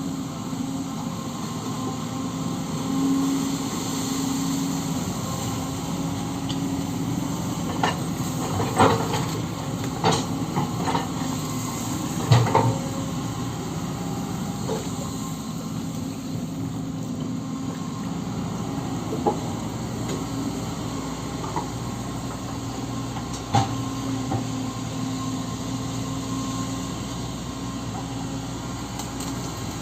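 Kobelco SK130 hydraulic excavator running steadily while digging, with a few sharp knocks and clanks, most of them bunched a third of the way through and one more later on.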